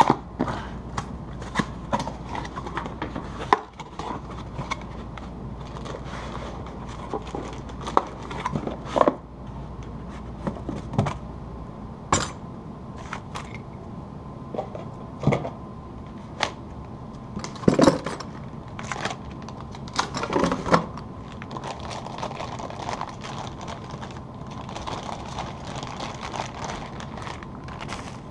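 Cardboard box being opened and a variable frequency drive unpacked from its cardboard end caps and plastic bag: cardboard rubbing and scraping, plastic crinkling and scattered sharp knocks of packing and unit on the bench.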